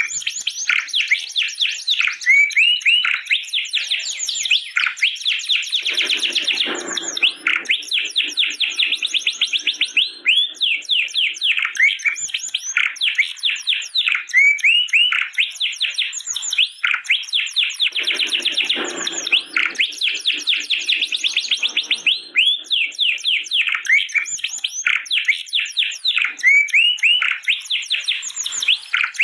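Domestic canary singing a long, unbroken song of fast trills: rapid runs of repeated chirping notes, with lower, rougher phrases twice, about six seconds in and again near eighteen seconds.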